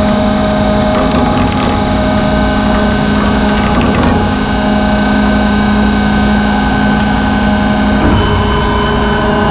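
Lifeboat davit winch's electric motor running steadily, hoisting an enclosed lifeboat on its falls: a loud, even mechanical hum and whine.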